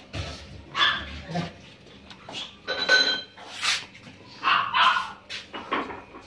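Pomeranian puppies yapping: a string of short, high yaps at uneven intervals.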